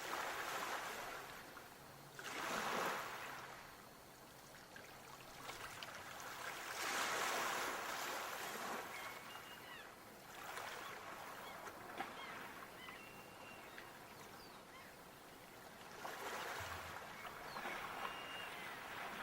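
Sea waves washing in and drawing back, in slow swells of surf every few seconds, the largest about three and seven seconds in.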